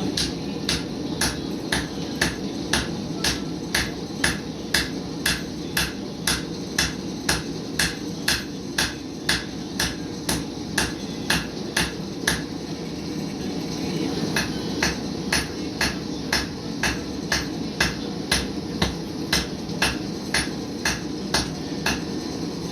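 Blacksmith's hammer striking metal on an anvil in a steady rhythm, about two blows a second, with a short pause a little past the middle before the blows resume. A steady low rumble runs underneath.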